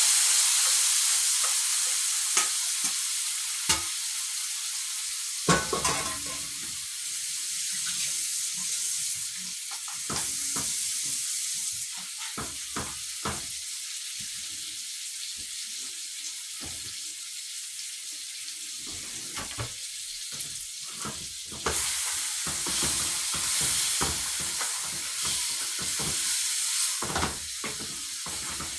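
Seasoned goat meat frying in hot curry oil in a pot, with a sizzle and many sharp clicks and knocks of a utensil against the pot as it is stirred. The sizzle is loudest at the start, as the meat hits the oil, dies down, and rises again about two thirds of the way through.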